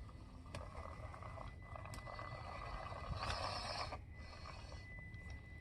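Small-scale RC crawler truck's electric motor and gears whirring as it creeps over dirt and rock, louder from about half a second to four seconds in, with a faint steady high whine throughout.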